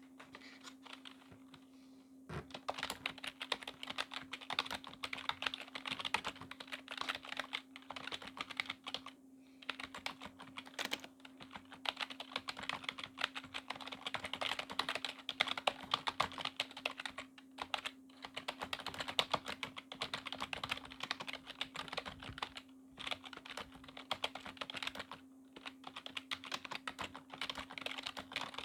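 Continuous typing on a Corsair K55 membrane keyboard: a rapid, dense patter of key clicks that starts about two seconds in, with a few short pauses between words. A steady low hum runs underneath.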